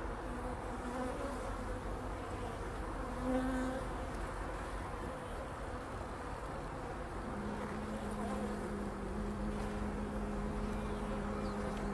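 Honeybees buzzing around an open hive: a steady hum of many bees, with a steadier low tone joining about seven seconds in.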